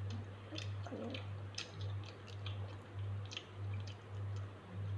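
Mouth chewing a chewy fruit jelly gummy, with scattered small wet smacks and clicks, over a steady low hum.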